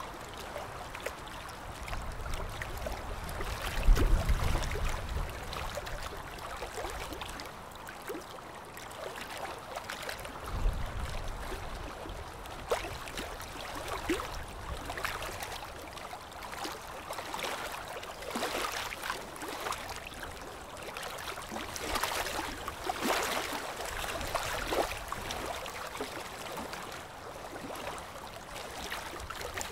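Dental suction tube hissing and gurgling as it draws up saliva, with scattered short scrapes and clicks of a hand scaler chipping tartar off the lower front teeth. Two dull thumps, about four and eleven seconds in.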